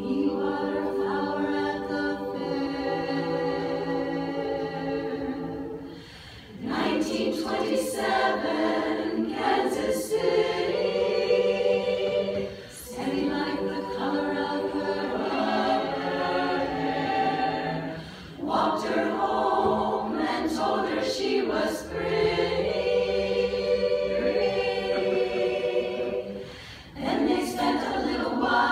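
Women's chorus singing a cappella, many voices holding chords together in long phrases, with short breaks for breath between phrases.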